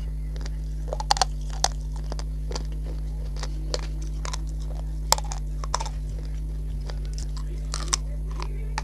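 Slate pencils being crunched and chewed in the mouth, close up: irregular crisp crunches every half second or so. A steady low hum runs underneath.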